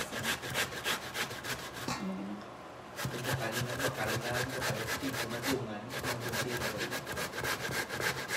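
Peeled cassava root grated by hand on a stainless-steel box grater: quick rasping strokes, about four a second, with a pause of about a second near the start and a shorter one midway.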